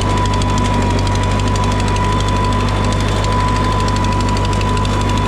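An engine running steadily at a constant speed, with fast even pulsing and a steady high whine over it.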